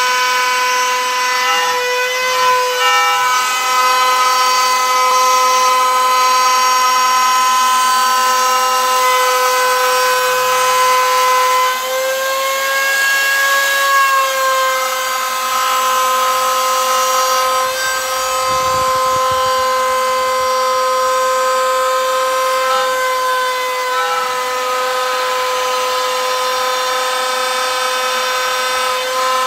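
Trim router used as the spindle of a homemade CNC machine, running with a steady high whine as its bit mills a slot into a wooden board; the pitch rises slightly for a couple of seconds midway.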